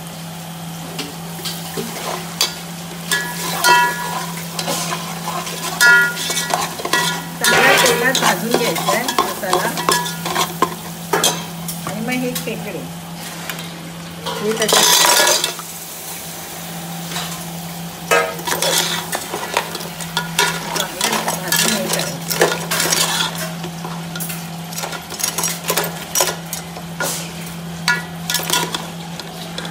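A metal spatula stirs and scrapes in a steel pot as onion and masala fry in oil, with sizzling and repeated clinks and knocks on the pot. About halfway through, a louder burst of sizzling comes as crab pieces go into the pot, and the stirring and scraping continue after it.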